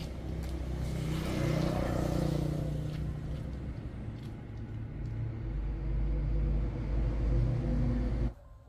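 A motor vehicle's engine running, a low steady rumble that swells about a second in and grows deeper and stronger past the middle, then cuts off sharply near the end.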